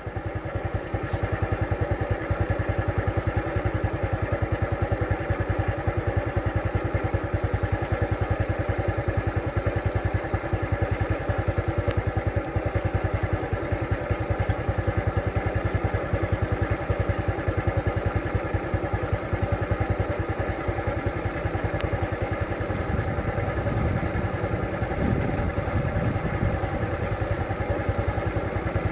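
A vehicle engine idling steadily, cutting in abruptly at the start, with a deeper rumble for a few seconds near the end.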